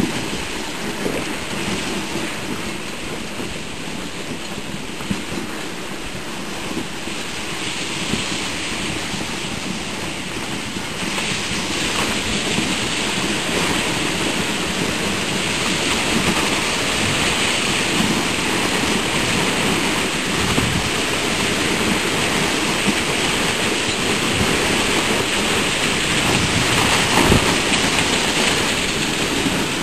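Dog sled gliding over snow: a steady rushing noise from the runners on the snow and wind on the microphone, growing brighter and a little louder about a third of the way in.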